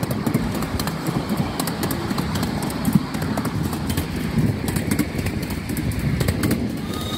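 Steam-hauled miniature railway train riding along, heard from on board: a steady low rumble of the wheels on the track with frequent sharp clicks.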